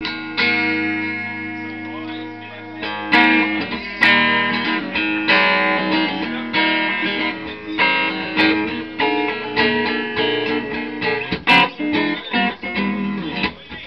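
Electric guitar played through a 1964 Silvertone 1485 tube amplifier head and its six-10-inch speaker cabinet, with strummed chords and picked notes left to ring out.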